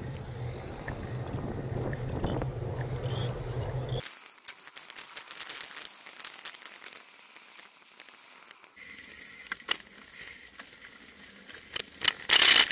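Traffic noise picked up by a bicycle-mounted camera: a steady low engine hum for the first four seconds, then, after a cut, a thin crackling wind and road hiss with scattered clicks and a loud rush of noise near the end.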